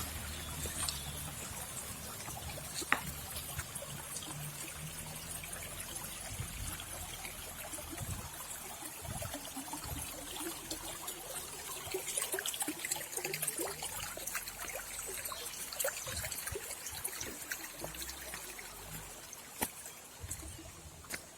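Water trickling and splashing steadily over a small waterfall.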